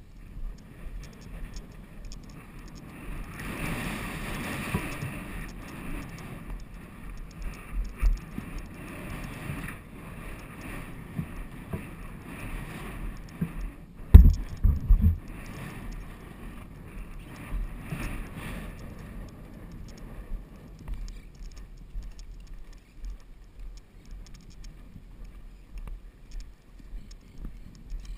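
A ridden horse's hoofbeats thudding on grass under wind rushing over the microphone, the rush louder through the middle stretch. A few sharp knocks come close together about fourteen seconds in.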